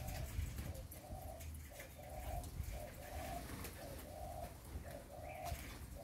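A dove cooing: a steady run of short, low coos, about two a second.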